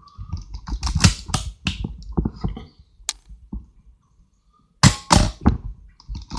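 Canon AV-1 SLR film camera being worked by hand: a run of small mechanical clicks from the film advance and controls, then the loud double clack of the shutter and mirror firing about five seconds in. The shutter fires with no sign of the squeak known as Canon cough.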